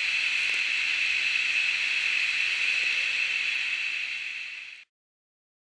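Steam hiss from a model locomotive's DCC sound decoder, played through its small onboard speaker: a steady hiss that eases slightly and then cuts off abruptly near the end.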